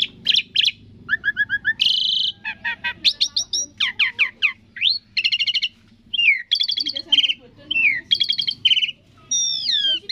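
Asian pied starling (jalak suren) singing a long, varied song. Quick chattering note trains mix with clear whistles that slide up and down in pitch.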